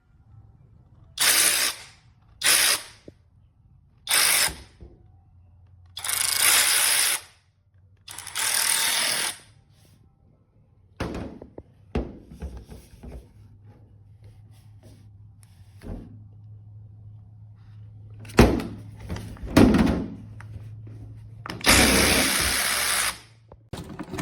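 Seesii 21V cordless electric ratchet wrench running in short trigger bursts, six times, each lasting about half a second to a second and a half. There are a few sharp knocks and clicks between them, mostly in the second half.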